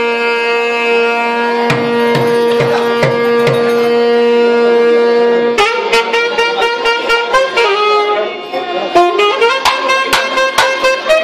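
Live procession music. A wind instrument holds one long steady note for about five seconds, with a few drum strokes under it. It then plays a moving melody over busier, regular drum beats.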